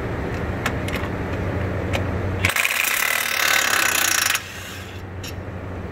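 DeWalt cordless impact wrench hammering hard for about two seconds, starting a little past halfway in and cutting off suddenly, as it breaks loose a thread-locked brake caliper bolt with an E18 Torx socket. Before it, a steady low hum and a few light clicks.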